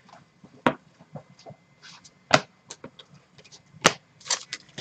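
Glossy trading cards being flipped through by hand: scattered short, sharp clicks and slaps as the cards snap against one another, three louder ones spaced about a second and a half apart.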